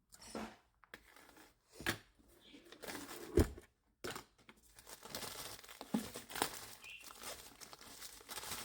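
Packaging being torn open and crinkled by hand to get a book out, with a thump about three and a half seconds in, then steady crinkling and rustling.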